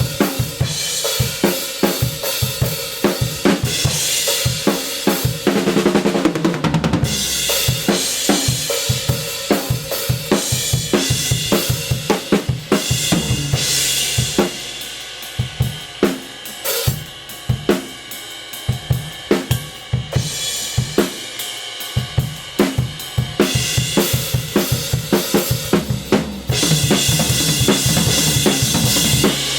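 Drum kit played in a groove with Kingdo Artist Modern B20 hand-hammered cymbals: kick and snare under hi-hats and cymbal wash. The cymbals get louder and fuller about three-quarters of the way through, as crashes or the ride take over.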